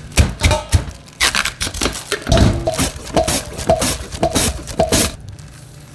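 A cooking utensil clattering and scraping against a pan in a quick run of sharp knocks, some ringing briefly. It stops about five seconds in.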